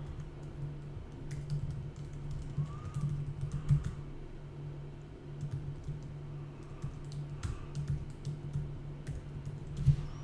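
Typing on a computer keyboard: irregular keystrokes clicking as text is entered into form fields, over a low steady hum.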